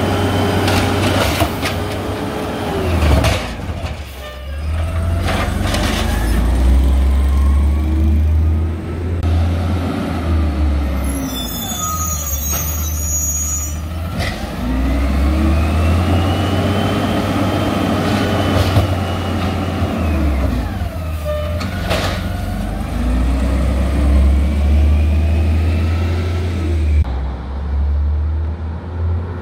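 LNG Peterbilt 320 automated side-loader garbage truck at work: the engine revs up and down again and again as the hydraulic arm lifts and dumps recycling bins, with clunks from the bins and arm. There is a short air-brake hiss about halfway through.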